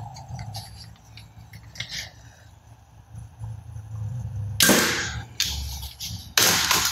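Toy gun firing: two loud shot-like bangs, nearly two seconds apart, each fading quickly, after a few light clicks.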